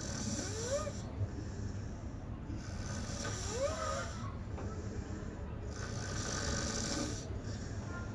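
Snoring: three slow breaths about three seconds apart, each a hissing rush of air, two of them with a short whistle that rises in pitch.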